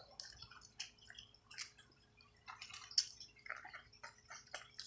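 Wet mouth sounds of eating: faint lip smacks, sucking and chewing clicks, with a sharper click about three seconds in.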